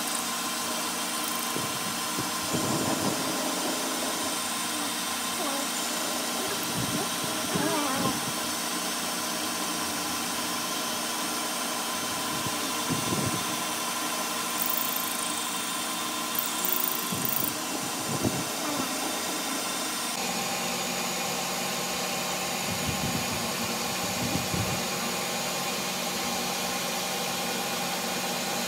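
Metal lathe running steadily while its tool cuts a thread into a steel shaft, a constant motor hum with brief louder cutting bursts every few seconds.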